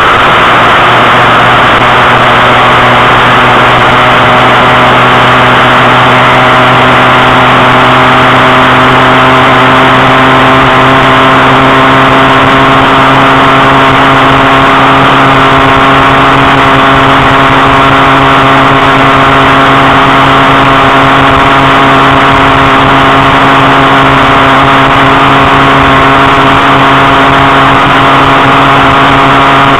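A small vehicle's motor runs loudly and steadily at speed, its drone creeping slowly up in pitch as the vehicle gathers speed, over a hiss of wind and road noise.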